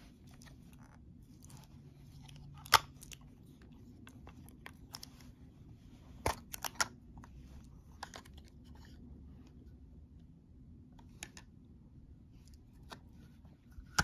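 Hard plastic clicks and small rattles as hands open a clear waterproof action-camera housing and take the camera out: one sharp snap nearly three seconds in, a quick run of clicks a little past the middle, and scattered lighter ticks.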